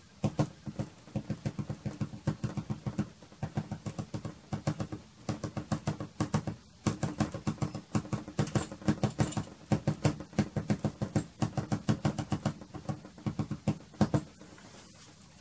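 A soft pastel stick dabbed rapidly against dark pastel paper taped to a board: dull taps, several a second, with a few short breaks, stopping shortly before the end.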